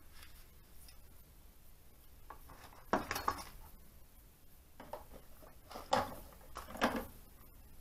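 Small metal engine parts clinking against each other as they are picked up and handled: a few sharp clinks, two together about three seconds in and two more near the end.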